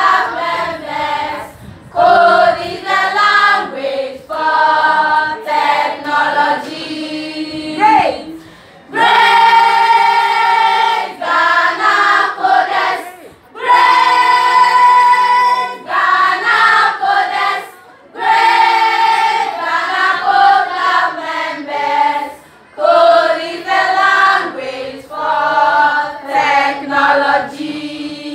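A group of schoolgirls singing an anthem together in chorus, phrase by phrase with short breaks between, some notes held long.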